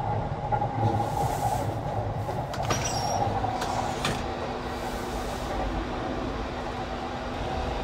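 Running noise of the Cassiopeia sleeper train heard inside a compartment: a steady low rumble. A few sharp clicks come about three to four seconds in as the washroom's sliding door is opened.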